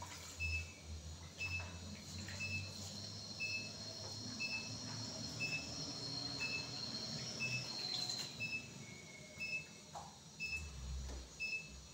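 Soaked dagaa being lifted and drained in a round wire-mesh skimmer: faint scrapes and light clinks of the skimmer against the basin. Under it, a faint high beep repeats about once a second.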